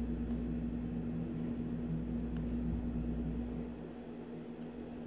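A steady low hum over faint room noise, with no speech. A low rumble under the hum drops away about three-quarters of the way through.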